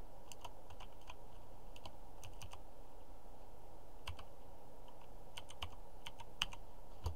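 Computer keyboard keys clicking as a short search term is typed. The keystrokes come irregularly, a few quick ones at a time with pauses between.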